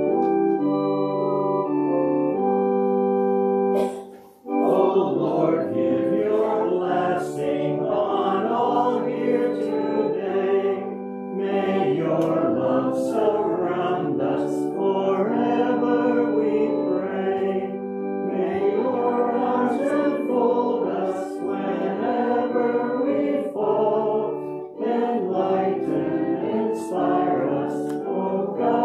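Organ playing held chords. About four seconds in the music breaks off briefly, and a hymn follows, sung by voices over accompaniment.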